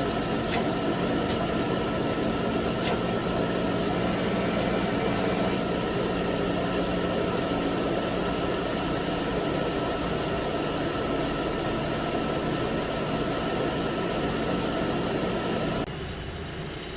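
Landis CNC cylindrical grinder running through its wheel-dress cycle: a steady machine hum with a few sharp clicks in the first three seconds. The noise drops somewhat about a second before the end.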